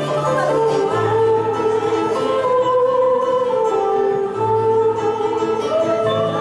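Instrumental background music: a slow melody of held notes over long, changing bass notes.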